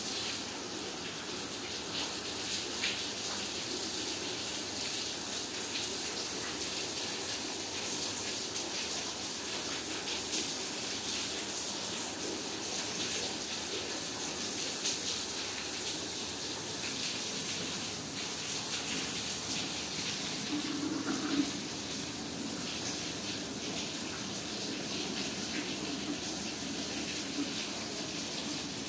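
Steady rush of rainwater running off after rain, with small drips ticking through it. One slightly louder tap comes about two-thirds of the way in.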